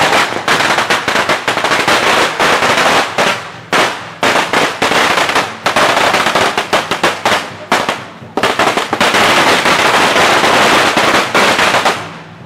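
Firecrackers going off in a dense, rapid crackle, briefly thinning twice and then stopping abruptly near the end.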